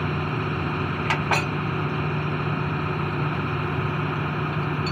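Truck-mounted borewell drilling rig's engine running steadily, with two short sharp clicks about a second in.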